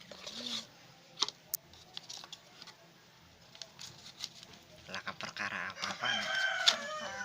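A rooster crowing once in the background, one long call near the end, with a few sharp clicks earlier.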